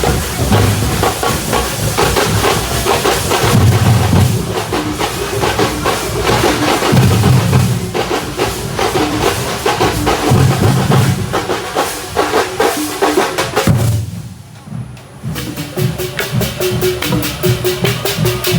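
Music driven by fast, dense drumming, with deep beats recurring every few seconds and a melody line over it. The playing drops away briefly near the end, then comes back in.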